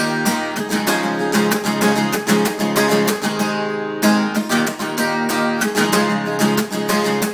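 Instrumental break of a country song: acoustic guitar strummed in a steady rhythm with no singing.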